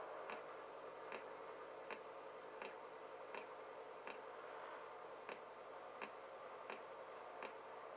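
Faint, regular ticking, about four ticks every three seconds, over a low steady hiss.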